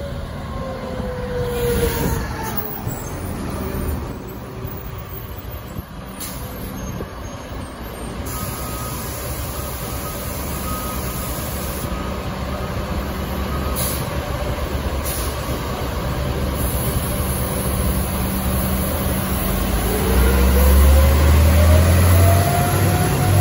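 Orion VII Next Generation CNG city bus pulling away through a turn, its engine running with a falling whine at first, then fading steadily as it drives off. Near the end a deep low rumble and a rising whine build and become the loudest sound.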